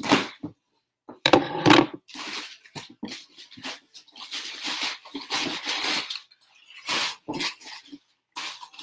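A cardboard shipping box being unpacked: packing paper and plastic rustling and crinkling, with the box handled and shifted in irregular bursts. The loudest handling comes right at the start and again about one to two seconds in.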